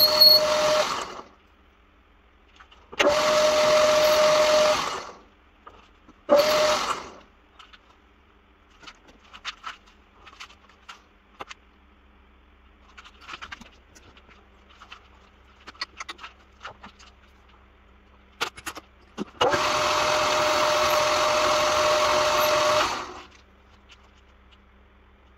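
Old metal lathe running with a steady whine, switched on and off several times: it stops about a second in, runs briefly twice, then runs for about three seconds near the end. Light clicks and taps come in between the runs.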